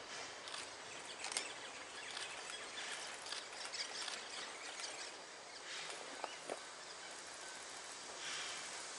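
Outdoor ambience among trees: a steady hiss with scattered rustles and small clicks, and a brief faint chirp about six seconds in.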